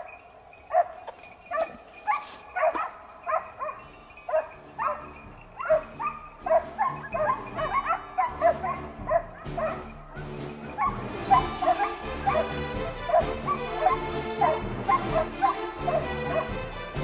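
Boar-hunting hounds giving tongue: high, yelping barks repeated about two or three times a second as they work a scent through the scrub. Background music comes in about halfway and runs under the barking.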